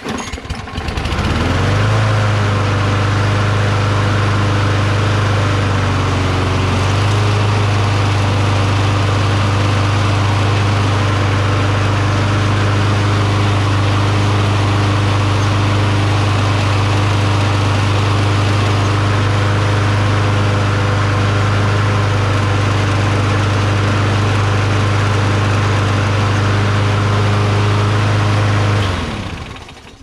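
Toro Recycler walk-behind mower's freshly primed gas engine starts about a second in and runs at a steady speed. It shuts off about a second before the end, winding down.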